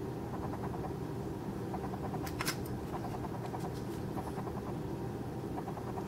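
Light clicks and taps of a knife blade and its pivot being handled and set into a small clamp, with a cluster of sharp clicks about two and a half seconds in. A steady low hum runs underneath.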